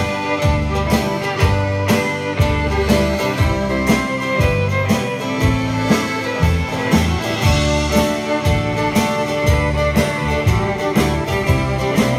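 Live band playing a song's instrumental intro: fiddle carrying the melody over strummed acoustic guitar and banjo, with a steady beat underneath.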